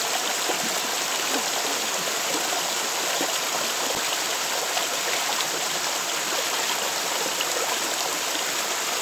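A shallow stream running over rocks, a steady, even rush of water.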